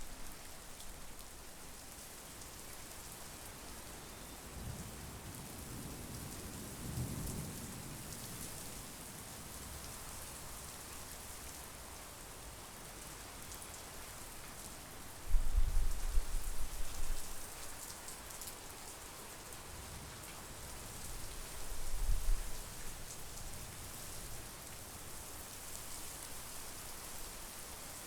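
Steady monsoon rain falling, with thunder rumbling: a soft rumble in the first third, a sudden louder one about halfway through that dies away over a couple of seconds, and another rumble a few seconds after that.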